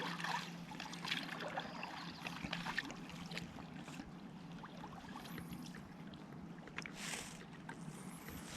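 Light water sounds of kayak paddling: paddle dips, drips and small trickles against the hull, with a brief louder whoosh about seven seconds in.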